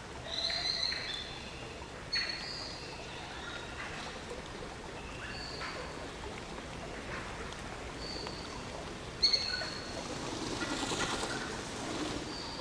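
Birds chirping in short, high whistled notes over a steady hiss of rain, with a couple of sharp taps, the louder one a little past the middle.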